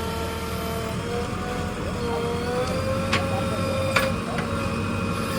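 JCB 3DX backhoe loader at work: its diesel engine running steadily under a whine that wavers slightly in pitch, with two sharp clanks about a second apart in the second half.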